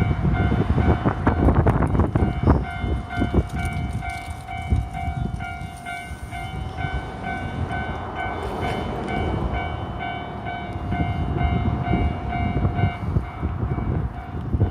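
Japanese railway level-crossing warning bell dinging over and over while a train rumbles past with wheel clatter; the bell stops about 13 seconds in.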